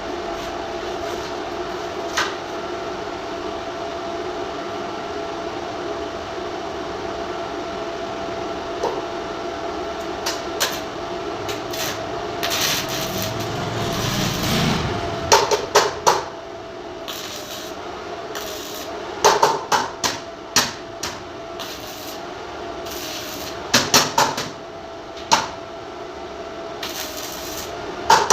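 Welding-shop sounds while working thin sheet metal: a steady machine hum throughout, a short crackling stretch about halfway, then clusters of sharp metallic taps like a hammer on the sheet.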